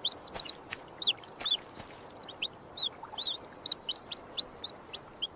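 A baby chick peeping over and over, short high chirps about three or four a second.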